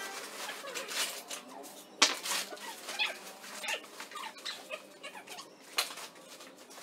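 Debris and woven plastic sacks being handled and swept during a clean-out: irregular rustling, scraping and clattering, with a sharp knock about two seconds in.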